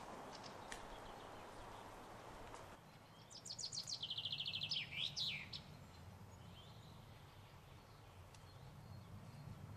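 A songbird sings one phrase a few seconds in: a quick run of repeated high notes ending in a couple of swooping notes, over faint outdoor background noise.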